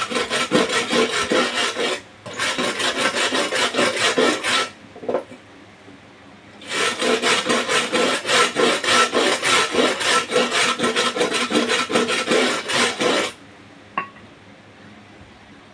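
Rapid back-and-forth rubbing of an abrasive on aluminium, like filing or brushing the joint clean, in three loud runs of strokes with short pauses between. A single light tick follows near the end.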